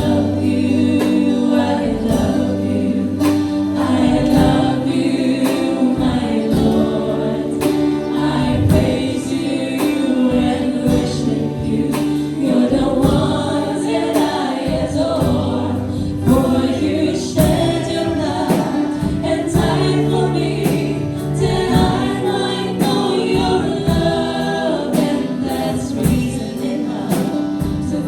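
Worship band playing a gospel praise song, with a group of voices singing together over a steady drum beat.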